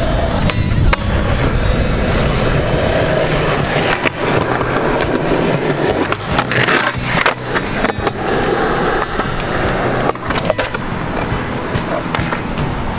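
Skateboard wheels rolling on concrete with a steady rumble, broken by several sharp clacks of the board popping and landing.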